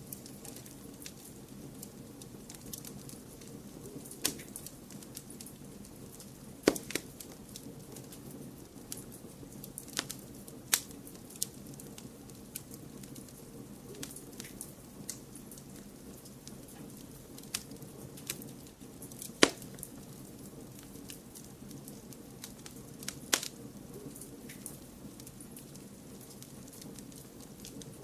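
Wood fire crackling: irregular sharp pops and snaps scattered over a steady low background noise, with a handful of louder pops standing out.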